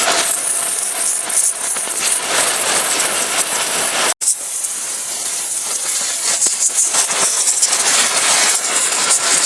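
Pressure washer spraying a hissing jet of water against a vehicle, with a spattering rattle of spray. It cuts out abruptly for a split second about four seconds in, then carries on.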